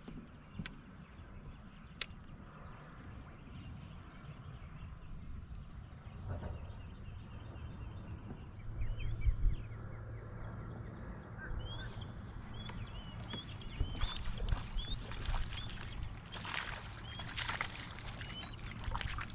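Outdoor ambience on the water with a bird calling in short rising chirps, over and over through the second half, over a steady high whine. A few sharp knocks and rustles of handling sound near the end.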